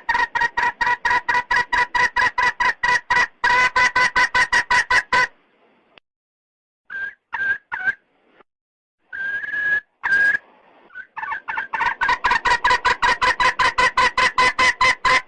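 Red junglefowl hen calling to a rooster: a fast run of short clucks, about six or seven a second, that breaks off about five seconds in for a few scattered clucks and one longer drawn-out note, then starts again near the end. This is the hen's call that hunters use as a lure for wild roosters.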